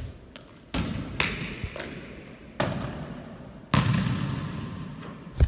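Basketball bouncing off the wall, backboard and floor of an indoor gym: a series of hard thuds about a second apart, each ringing out in the hall's echo.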